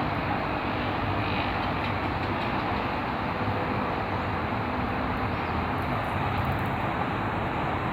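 Steady, even roar of highway traffic.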